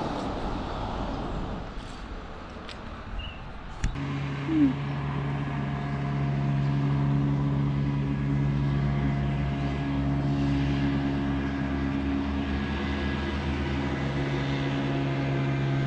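Background noise with a few clicks, then an abrupt change about four seconds in to a steady vehicle engine drone, an even hum that holds at constant speed.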